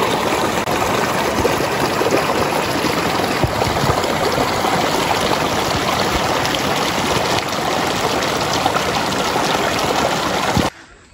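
Small stream flowing, a steady, loud rush of water that cuts off abruptly near the end.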